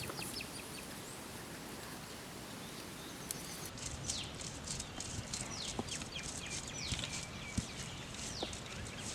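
Birds chirping: many short, high, downward-sliding calls that come thick and fast from about four seconds in, over a faint steady outdoor background.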